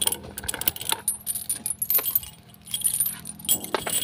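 Metal tether chain on a buffalo rattling and clinking in irregular bursts as it is handled and pulled.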